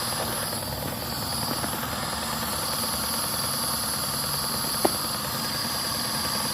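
Daihatsu car engine idling steadily, running again after a blown 10-amp engine fuse had left it cranking without starting. A single brief tick about five seconds in.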